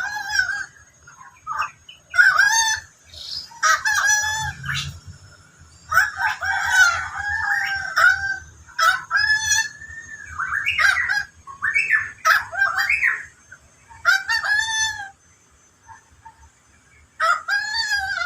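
A bird the title calls the endemic 'koak kaok' giving a long series of short, harsh, pitched calls in bursts, each call bending down and up, with a pause of about two seconds near the end. A faint steady high-pitched tone runs underneath.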